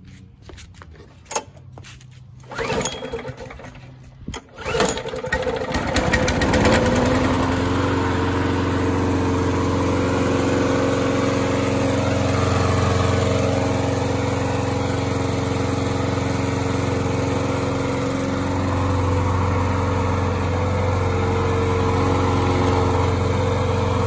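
Murray walk-behind lawn mower's small petrol engine pull-started: a few tugs on the recoil cord, then it catches about four and a half seconds in, revs up, and settles into running steadily.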